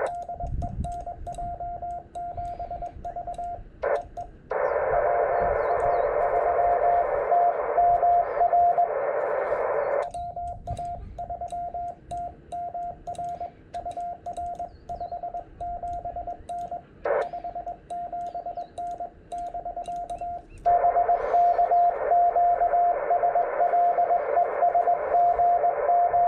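Ham radio transceiver sounding Morse code on the 18 MHz band: a single steady mid-pitched tone keyed rapidly in dots and dashes. Twice, a band of receiver hiss rises behind the tone for several seconds, then drops away.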